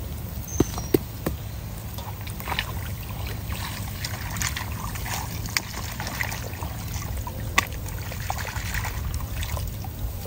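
Muddy water splashing and trickling as a plastic basket is scooped through shallow mud and lifted out to drain, with scattered small clicks and knocks.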